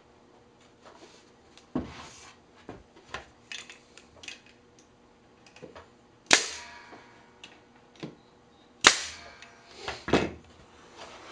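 Brad nailer firing twice, about two and a half seconds apart, each shot a sharp snap with a short ringing tail as a brad is driven through the rail into the plywood side. Lighter knocks of the wooden parts being handled come between.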